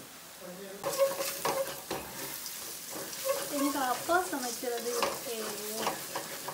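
A spatula stirring and scraping onions, chillies and spices frying in oil in an aluminium pot, with a steady sizzle. The scraping strokes start about a second in and repeat irregularly. This is the tempering frying before the chicken goes in.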